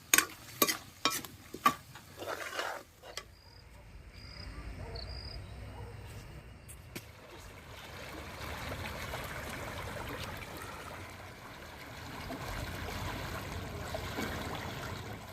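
A metal spoon knocks against a cooking pot several times in the first three seconds while stirring, then masala sizzles steadily as it fries in the pan.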